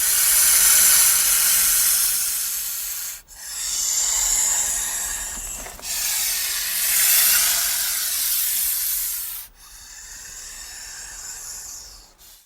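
Snake hissing: four long hisses of about three seconds each, back to back, the last one quieter, then a brief final hiss.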